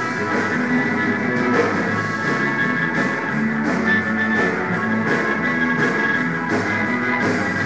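Rock band playing live: electric guitar and bass over a drum kit, with cymbal strikes at a steady beat.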